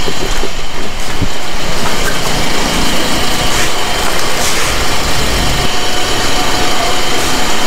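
Steady street traffic noise with a motor vehicle engine running.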